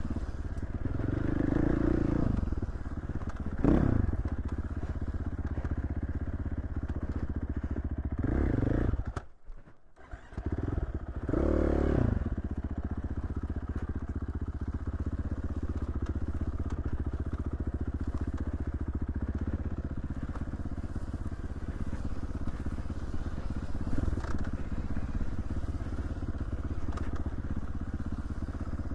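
Dirt bike engine running under way, rising with the throttle a few times and dropping away briefly about a third of the way in before picking up again.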